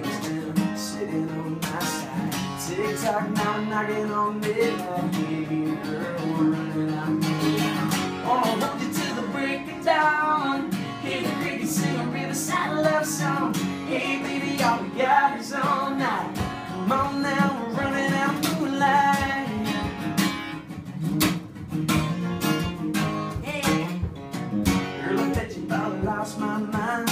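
Acoustic guitar strummed live in a country song, with a man singing over it.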